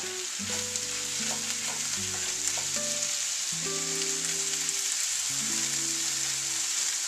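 Ground beef and diced potatoes sizzling in an enamelled frying pan, a steady frying hiss, while a wooden spoon stirs and scrapes through them. Soft background music of slow held notes plays under it.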